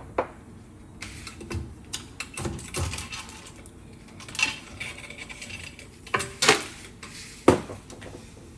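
Irregular metallic clinks and knocks of tools and metal wheel parts being handled during tire-shop work, with a few sharper knocks in the last few seconds.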